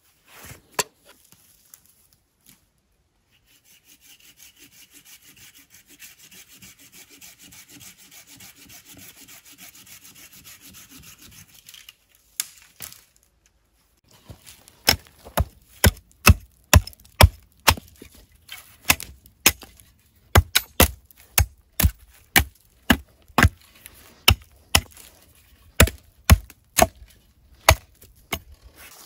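A saw rasping steadily through a green sapling trunk for about eight seconds. After a short pause comes a long run of sharp chopping blows into the wood, about two a second.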